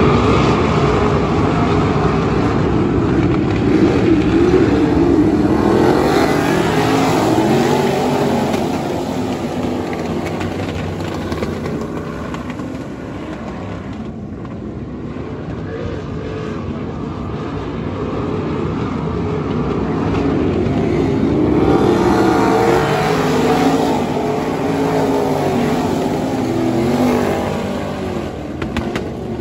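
A pack of 360 winged sprint cars' V8 engines running around the dirt oval. The sound is loud at first, fades around the middle as the cars go to the far side, and grows loud again in the last third as they come back around.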